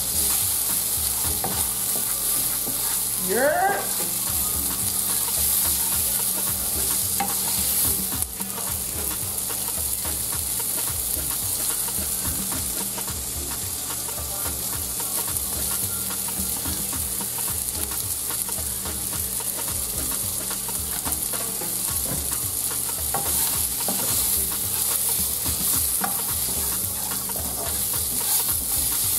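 Bell pepper, onion and breaded nuggets sizzling in oil in a nonstick frying pan, stirred and scraped with a wooden spatula, with irregular knocks of the spatula against the pan. A short rising tone sounds about three seconds in.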